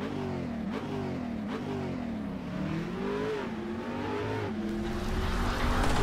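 An engine revving in repeated throttle blips, its pitch rising and falling several times, then holding steadier near the end.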